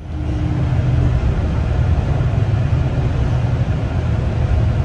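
Steady low rumble of a bus engine and running gear heard from inside the bus's cabin.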